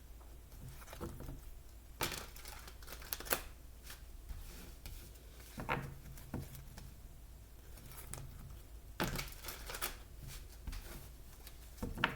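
Tarot and oracle cards being handled and shuffled: papery rustles and sharp card taps at irregular intervals.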